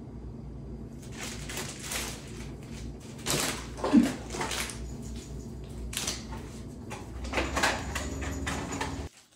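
Scattered rustling of hands handling ornaments among an artificial Christmas tree's plastic branches, over a steady low hum, with one short louder sound about four seconds in. The sound cuts off just before the end.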